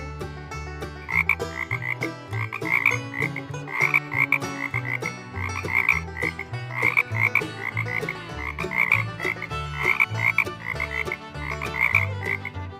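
Frog croaking in quick pulsed bursts, repeated in groups from about a second in.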